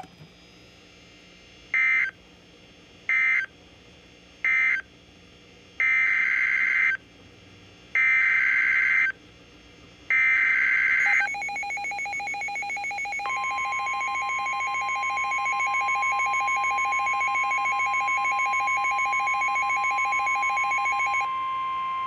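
NOAA Weather Radio SAME digital data bursts: three short bursts, typical of the end-of-message code, then three longer bursts of about a second each, the header of the tornado warning. Weather alert radios then set off a fast pulsing alarm beep at two pitches, and about two seconds later the steady 1050 Hz warning alarm tone starts and holds.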